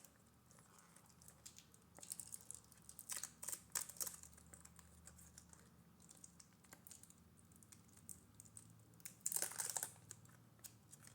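Faint crinkling and small clicks of protective plastic film being picked and peeled off a watch, in scattered bursts, busiest a few seconds in and again near the end.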